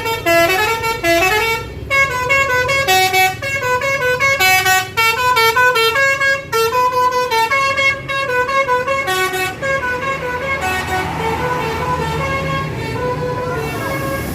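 Tour bus's basuri musical air horn playing a fast tune of short stepped notes. It grows fainter over the last few seconds.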